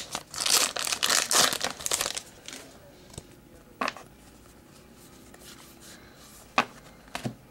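Trading-card pack wrapper crinkling and tearing open for about the first two seconds. Then it is quieter, with a couple of sharp clicks as the cards are handled.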